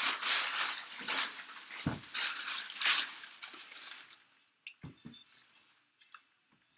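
Clear plastic shrink-wrap crinkling and tearing as it is pulled off a cardboard box by hand. After about four seconds it gives way to a few soft knocks as the box is handled.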